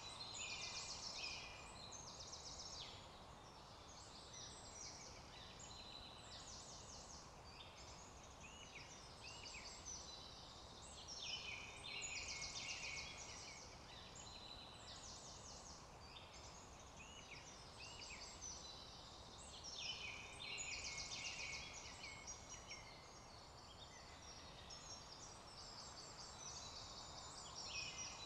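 Several songbirds singing at once: overlapping high chirps and trills over a faint steady background hiss, with louder bouts about a second in, around twelve seconds in and around twenty seconds in.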